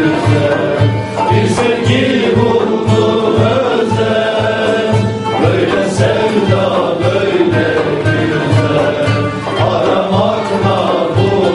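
Live Turkish folk song: voices singing over bağlama (long-necked lute) accompaniment, with a steady low beat about three times a second.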